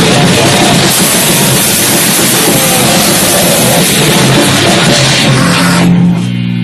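Loud, dense distorted heavy rock or noise music with drums, a wall of sound that thins about six seconds in to a single held distorted guitar chord.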